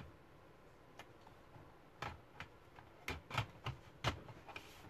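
Plastic bottom cover of a Dell Inspiron 15 3000 laptop being pressed back onto the chassis, its edges and clips giving a series of short, irregular clicks and taps, most of them from about two seconds in.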